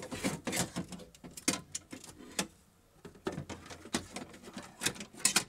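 Irregular clicks, knocks and rattles of an old power window regulator and motor assembly being tilted and worked out through the door's access hole, its parts knocking against the sheet metal, with a brief lull about halfway through.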